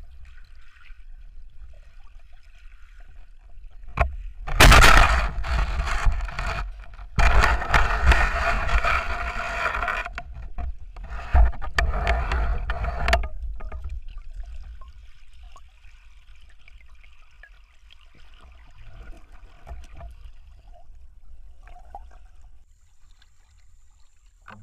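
Muffled underwater sound of spearfishing with a speargun: a sharp click about four seconds in, then about nine seconds of loud churning and scraping water noise in several bursts while the speared fish is handled, settling to faint water noise.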